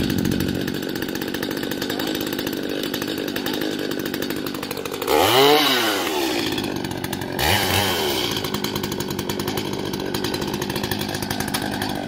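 Small two-stroke chainsaw idling just after a cold start. About five seconds in it is revved up and back down once, then briefly revved again a couple of seconds later.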